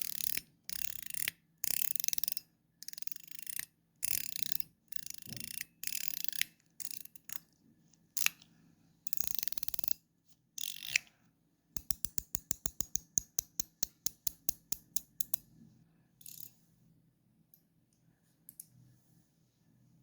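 9HAND Ding Ding metal fidget slider being slid back and forth by hand, each slide a bright metallic scraping rattle, about a dozen strokes. Near the middle it breaks into a rapid run of sharp clicks, about eight a second, then a few faint scattered clicks.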